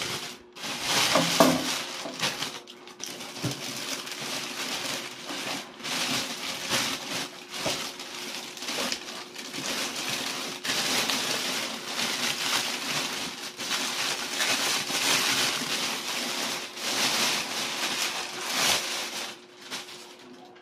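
Plastic packaging crinkling and rustling in handfuls as it is pulled and stripped off a boxed power amplifier, with the loudest crackle about a second and a half in.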